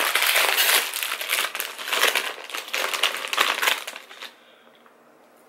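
A crinkly chip bag being handled and rummaged, a loud dense rustle that stops about four seconds in.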